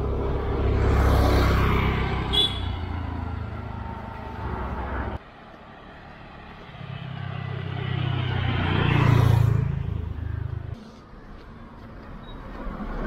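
Two motor vehicles pass close by on the road one after the other, each engine note swelling to a peak and then falling away. Both cut off abruptly, the first about five seconds in and the second near the end.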